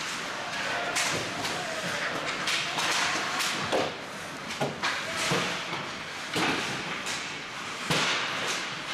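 Ice hockey play: skate blades scraping the ice, with repeated sharp knocks and clacks from sticks, the puck and players hitting the boards, and some faint shouting.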